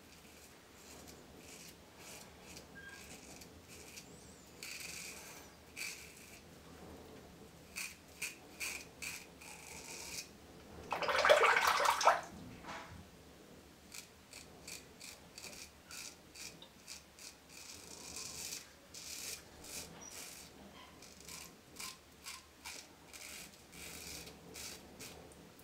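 RazoRock Black Hawk aluminium safety razor scraping through stubble on a lathered face in short, repeated strokes, shaving with the grain. About 11 seconds in there is a louder rushing sound lasting about a second.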